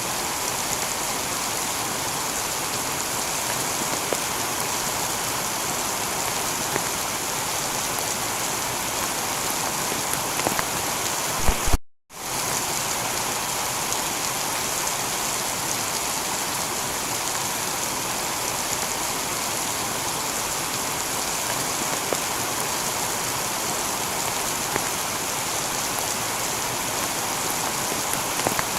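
Steady heavy rain pattering on a tiled roof. About twelve seconds in, the sound cuts out to silence for a split second, then resumes unchanged.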